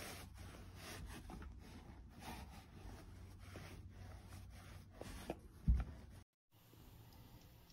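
Handheld pet hair roller rubbing back and forth over couch upholstery fabric in a run of faint scraping strokes, with a dull thump a little before 6 s. The sound then cuts out for a moment and returns quieter.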